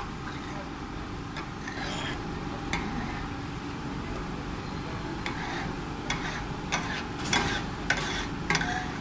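Chicken tawa masala cooking on a tawa griddle: a spatula stirring and scraping the food over the hot surface with sharp clacks against the metal, coming more often in the second half, the loudest three near the end, over a steady sizzle.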